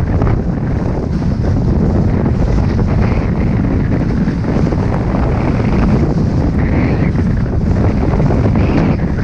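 Wind buffeting the microphone of a camera worn by a skier running downhill: a loud, steady low rumble of rushing air.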